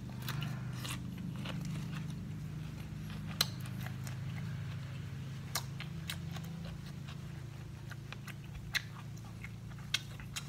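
Person chewing a mouthful of crispy batter-fried anchovies, with sharp crunches every second or two, over a steady low hum.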